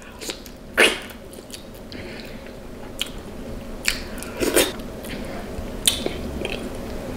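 A person chewing and biting food from a seafood boil, with several sharp wet mouth clicks scattered through the chewing.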